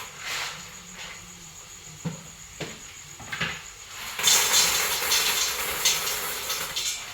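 Kitchen cooking noises: a few light knocks, then a steady hiss from about four seconds in.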